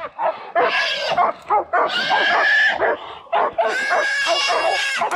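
Hunting dogs barking and yipping around a hog they have caught, as the hog gives two long, steady, high-pitched squeals, the second one longer.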